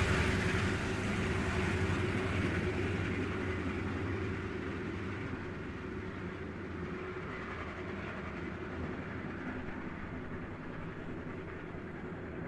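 Train moving away along the track, its rumble and wheel noise fading steadily after passing close by.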